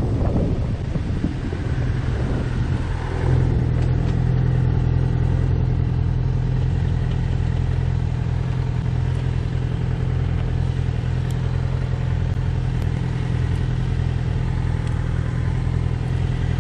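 Yamaha FZ6R's 600 cc inline-four engine running at a steady engine speed, with wind noise on the microphone that dies down over the first few seconds.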